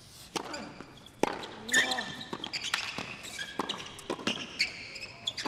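A serve and a fast doubles rally on a hard tennis court: a string of sharp racket-on-ball hits about a second apart, with sneakers squeaking on the court surface between shots.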